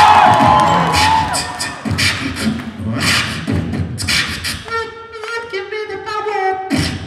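Live beatboxing through a microphone: a fast run of sharp percussive mouth sounds, then, from about two-thirds of the way in, a couple of seconds of held pitched notes stepping down in pitch that cut off abruptly near the end.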